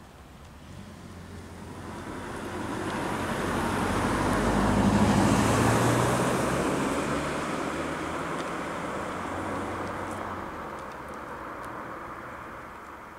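A road vehicle driving past: engine hum and tyre noise swell up, peak about five seconds in, then slowly fade away.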